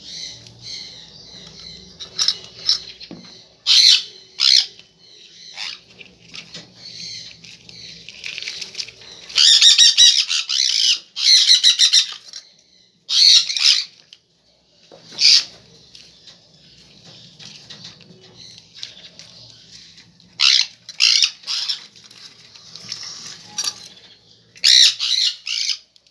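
Hand-fed baby birds squawking, a continuous harsh chatter with loud, hoarse food-begging bursts every few seconds, the longest run of squawks a little before the middle.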